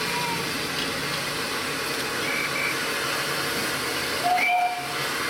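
Steady steam hiss from a GWR pannier tank steam locomotive standing at the platform. A few short high chirps cut through it, the loudest about four seconds in.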